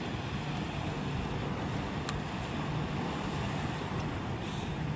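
Wind on the microphone and water around a small boat, a steady noise with a low, even hum underneath. There is a faint tick about two seconds in.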